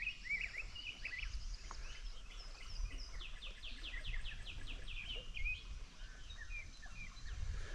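Songbirds singing: short chirps at the start, then a fast run of downward-sweeping notes about three seconds in, followed by a few scattered chirps, over a faint low rumble.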